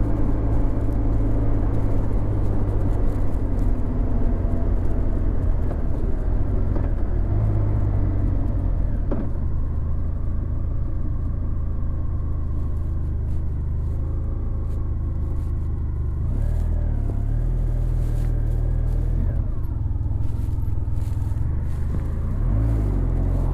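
Honda VFR1200X Crosstourer's V4 engine under way through an Akrapovic titanium exhaust, a deep steady rumble whose pitch drops and climbs again as the revs change, about nine seconds in and again near the end.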